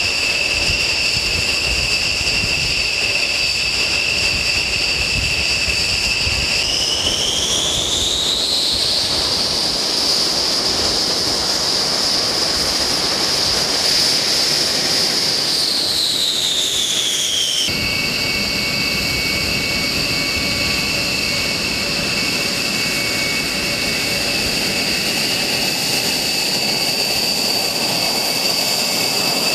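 B-1 Lancer bomber's jet engines running loud with a high whine over a steady rush of noise. The whine rises in pitch about seven seconds in, holds, and falls back around sixteen seconds. A sudden change just before eighteen seconds brings in another steady whine.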